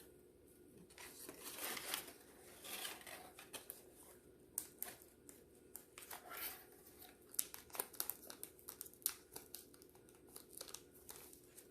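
Hands removing an orchid's shipping wrapping: intermittent crinkling, rustling and tearing, with many small sharp crackles.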